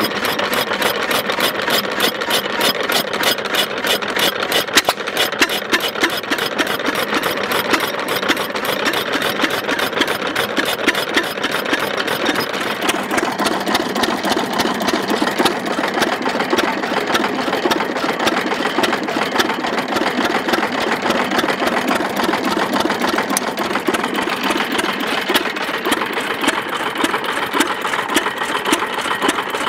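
Ruston & Hornsby AP 6 hp single-cylinder stationary engine running steadily, with a fast, even mechanical clatter.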